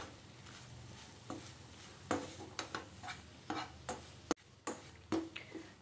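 A spatula stirring and scraping mashed-potato masala around a nonstick pan, with irregular scrapes and taps and a sharp knock a little past four seconds in. Under it is a faint, steady sizzle as the spice powders cook off their raw smell.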